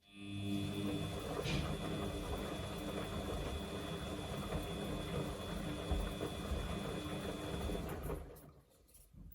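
Samsung washing machine's drum motor starting up and turning the drum, a steady hum with a high whine over the sound of the laundry tumbling. After about eight seconds it winds down to a stop, the usual turn-and-pause of the wash action.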